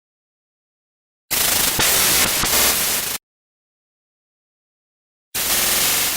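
VHS-style tape static: a burst of hissing static with a buzzing hum, about two seconds long, starting a little over a second in, then a second static burst beginning near the end.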